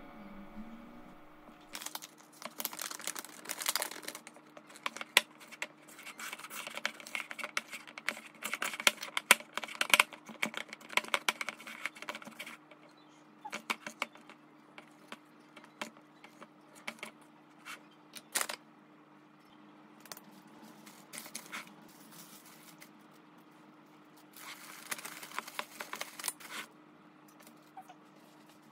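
Plastic dough scraper scraping and clicking against a glass mixing bowl as sticky bread dough is worked, in quick irregular strokes that grow sparser after about twelve seconds. Near the end, two seconds of plastic wrap crinkling as the bowl is covered. A faint steady hum lies underneath.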